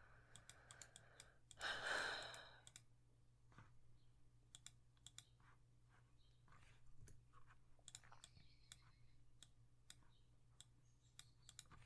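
Scattered soft clicks of a computer mouse and keyboard, irregular and close together, with an audible exhaled breath about two seconds in.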